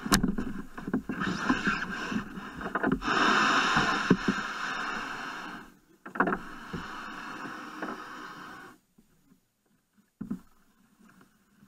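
Plastic kayak hull scraping over the sandy, gravelly shore as the boy climbs in and it is pushed off, with knocks on the hull. The scraping stops about nine seconds in once the kayak floats, and one more knock follows.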